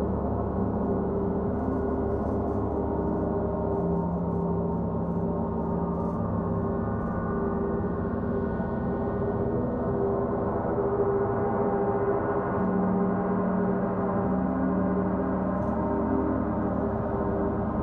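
Several large gongs ringing together in a steady, sustained wash of low tones, with a deeper tone swelling up twice and fading slowly.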